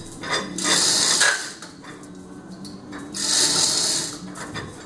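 Hand-tool work on the disassembled Orenda 14 turbojet: two bursts of rapid mechanical ratcheting, each about a second long, over a low steady hum.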